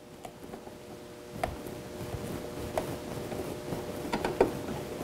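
Screw being turned by hand with a short screwdriver into a Can-Am Spyder F3's upper front grill: faint scattered ticks and small clicks from the screw and driver, over a low steady hum.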